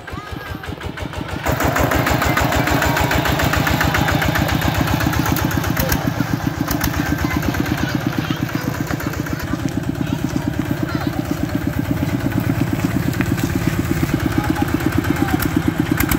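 Single-cylinder diesel engine of a two-wheel walking tractor running with a steady, even beat. It grows louder about a second and a half in as the tractor comes close.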